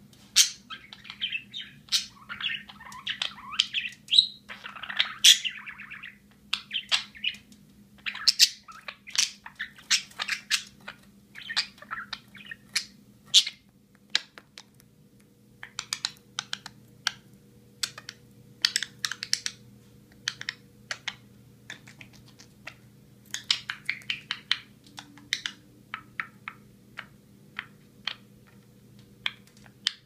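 Budgerigar chattering and chirping: a run of warbling chatter in the first few seconds, then many short, sharp chirps and clicks in quick irregular bursts.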